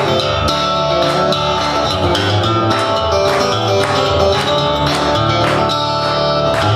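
Harp guitar played solo, with a steady rhythm of plucked notes over deep, ringing bass strings.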